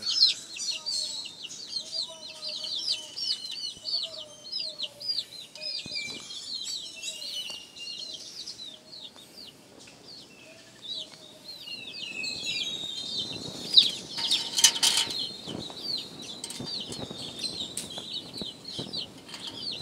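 Young chicks peeping nonstop: many short, high, down-sliding chirps, several a second. A brief loud rustling burst comes about two-thirds of the way through.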